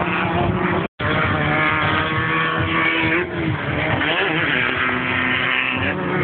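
Off-road race vehicle engines running hard and revving, pitch rising and falling with throttle, cut by a brief total dropout just under a second in.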